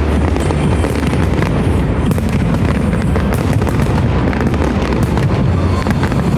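Fireworks display going off in a dense, unbroken run of bangs and crackles, with music playing underneath.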